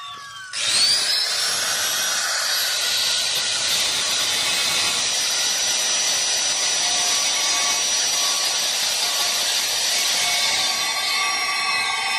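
A high-speed handheld power tool spins up about half a second in, its whine rising quickly. It then runs steadily, a high whine over a hissing noise.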